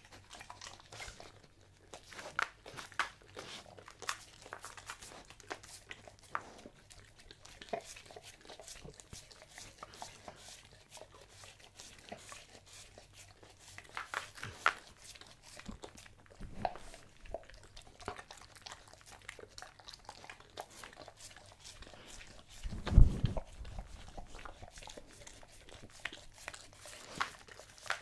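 German Shepherd licking and chewing scraps off a wooden board, with scattered wet clicks and crunches from tongue and jaws. One loud, low thump comes late on.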